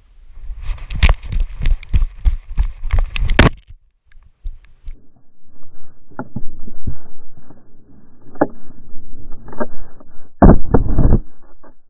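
GoPro Hero 4 Silver harnessed to a running border collie, knocked and jostled: a quick run of sharp clicking knocks and rattles for about three and a half seconds, then muffled rubbing and thuds against the camera, with a loud burst of knocks near the end.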